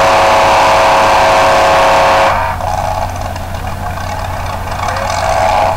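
Modified 4x4 pulling pickup's engine running hard at high, steady revs under the load of the sled, then abruptly cut back a little over two seconds in, leaving a much quieter engine sound: the driver lifting off at the end of the pull.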